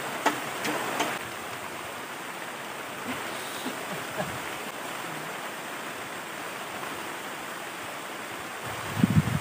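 A steady rushing noise, with a few sharp clicks in the first second and low rumbling gusts of wind on the microphone near the end.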